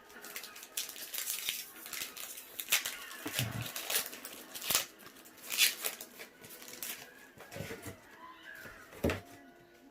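Foil trading-card booster pack wrappers crinkling and cards being handled: irregular crackles and sharp clicks, busiest in the first seven seconds, with one more snap near the end.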